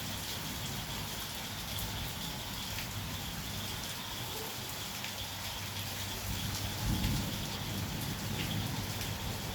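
Heavy rain falling steadily, with a brief low rumble of thunder about two-thirds of the way through.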